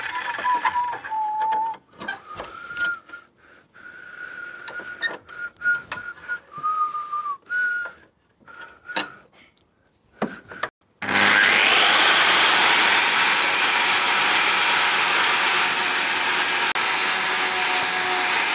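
Screwdriver levering and scraping at rusted exhaust bolts, with short high squeaks of metal on metal and a few clicks. About eleven seconds in, an angle grinder spins up with a rising whine and runs steadily and loudly, cutting the exhaust off at the catalytic converter joint because the bolt heads have rusted away.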